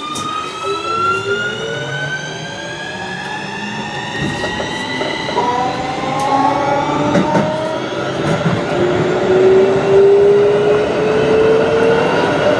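Keikyu New 1000 series train's Siemens IGBT-VVVF inverter and traction motors whining as the train accelerates, several tones rising in pitch together. About five seconds in the pattern switches to a lower set of tones that keep rising, and the sound grows gradually louder.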